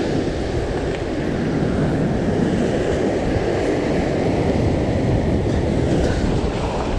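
Surf crashing against lava rocks: a steady low rumble of breaking waves, with wind buffeting the microphone.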